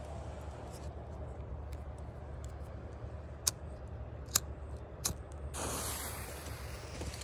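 A pocket lighter clicked three times at the green fuse of a PK2 firecracker, then the lit fuse hissing from a little past halfway.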